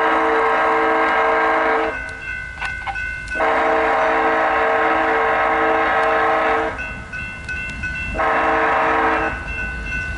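BNSF freight locomotive air horn sounding the grade-crossing warning: the end of one long blast, a second long blast of about three seconds, then a short blast near the end. Between blasts the crossing's electronic warning bells can be heard ringing steadily.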